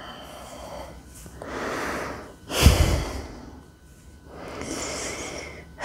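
A woman breathing deeply, three drawn-out breaths a second or two apart. The middle one, about two and a half seconds in, starts sharply and is the loudest.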